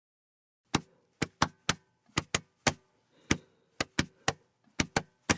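Sharp percussive hits tapped out in an uneven, syncopated rhythm, about fourteen in all. It is a beat laid down as the intro to a song.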